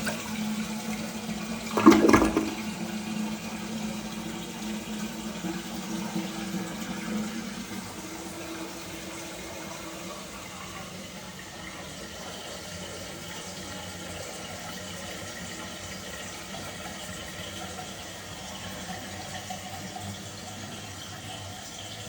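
Duravit dual-flush toilet on its long flush: a loud surge of water about two seconds in, fading over the next few seconds into a steady rush of running water as the cistern refills.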